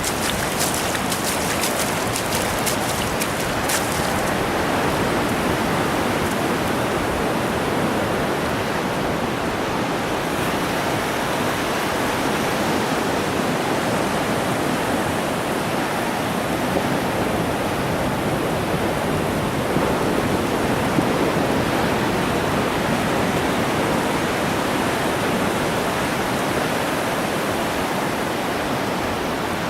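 Steady rushing noise of ocean surf on a beach, with no single wave standing out. A few faint high ticks come in the first four seconds.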